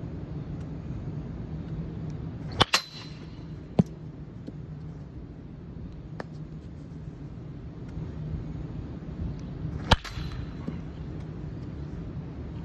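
A baseball bat striking a ball twice, about seven seconds apart. Each is a sharp crack with a brief ringing tail, and a fainter knock follows about a second after the first. A steady low hum runs underneath.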